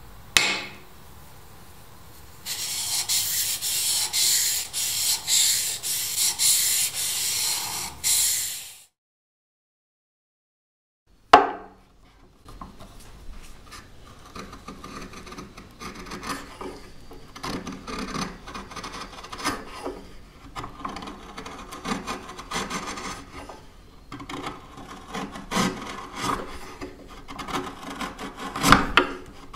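A chisel is honed on a sharpening stone in a run of steady back-and-forth scraping strokes. After about two seconds of silence and a single click, the sharpened chisel pares thin shavings off the end grain of a small wooden block in a long series of crisp slicing cuts.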